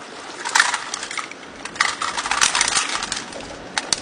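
Clatter and clicks of many Kalashnikov rifles and their kit as a squad drops in unison from standing to seated firing positions. It comes as a short rattle about half a second in, a longer rattle around two seconds in, and two sharp clicks near the end.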